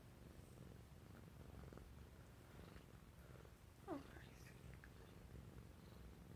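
Burmese cat purring faintly and steadily while lying against a person's chest, with one short falling squeak about four seconds in.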